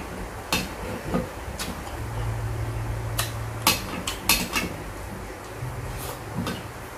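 Close-miked eating sounds: sharp wet mouth clicks and smacks while chewing fried fish, clustered around the middle, with a low steady hum twice, about two seconds in and near the end.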